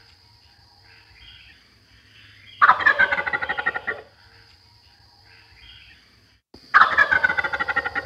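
Wild turkey gobbler gobbling twice, each gobble a loud, fast rattling call lasting just over a second, the first about two and a half seconds in and the second near the end.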